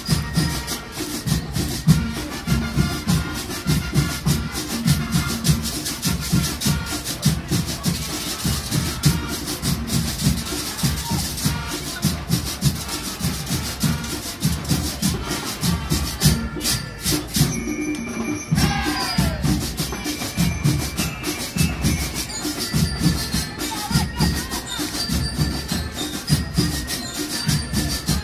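Background music with a steady, fast percussive beat. About two-thirds of the way through it drops out for a moment, then a falling swoop sounds before the beat resumes.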